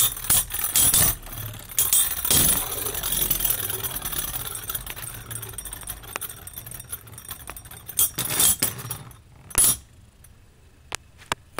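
Two metal Beyblade spinning tops, Diablo Nemesis X:D and Kries Cygnus 145WD, whirring across a plastic stadium floor and clashing again and again with sharp metallic clinks. The spinning noise fades as the tops lose speed. A couple of hard clashes come about eight and nine and a half seconds in, then it is much quieter, with only a few last clicks.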